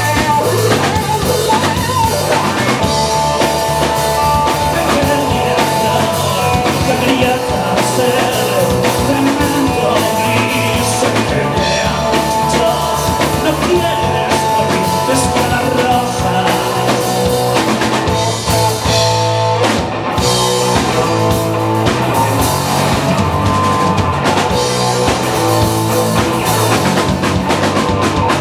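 Live rock band playing: electric guitar, electric bass and drum kit together in a steady, loud rock groove.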